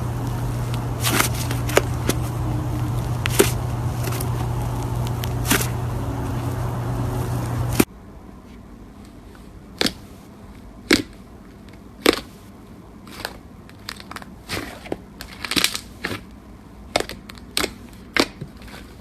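Slime being squeezed and worked by hand, giving scattered crackles and pops. For the first part a steady low hum runs underneath; about eight seconds in it cuts to a quieter recording of sparser, sharper clicks and pops.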